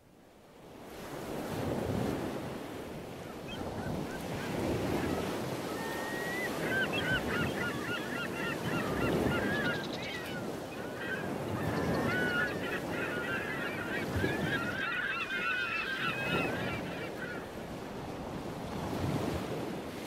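Ocean surf washing in and drawing back, swelling every few seconds, with a flock of birds calling through the middle stretch.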